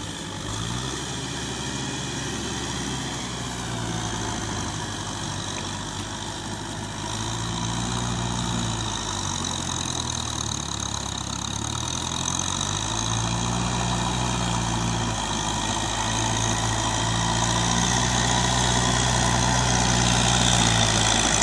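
Kubota M6040SU tractor's four-cylinder diesel engine running steadily as the tractor works across a flooded paddy, its pitch rising and falling slightly. It grows gradually louder as the tractor approaches.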